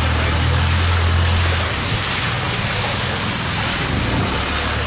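Boat engine running with a low hum that eases off about a second and a half in, over a steady rush of water and wind noise.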